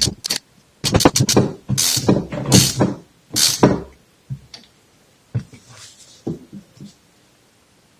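Hand tools working metal on the fork leg as a bolt is tightened down: a quick run of short clicks, then three rasping strokes, then a few faint knocks in the second half.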